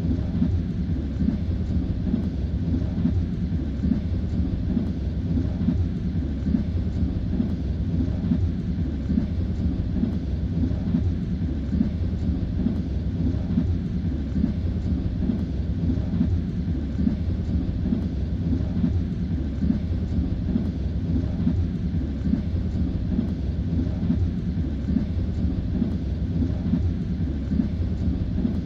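Train wheels running on the rails at speed: a steady low rumble.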